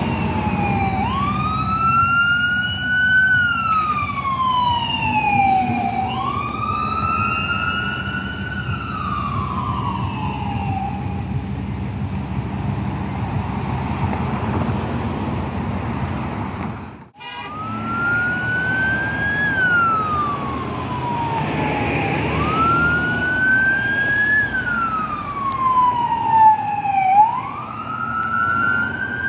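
Emergency vehicle siren in wail mode, rising quickly and falling slowly about once every five seconds, over the low rumble of idling traffic. The siren fades about halfway through, cuts off briefly, then comes back loud.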